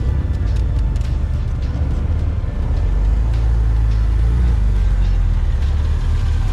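Car engine and exhaust running with a steady, deep rumble that grows slightly louder about three seconds in.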